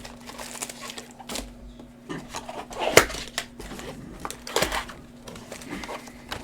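Baseball card packs and cards being handled: wrapper crinkling and rustling with a few sharp clicks, the loudest about halfway through, over a faint steady hum.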